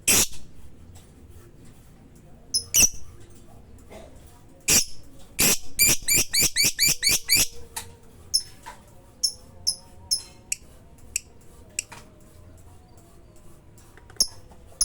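Lovebird chirping in sharp, high calls: a few single chirps, then a fast run of about eight in a row, then shorter chirps scattered through the rest.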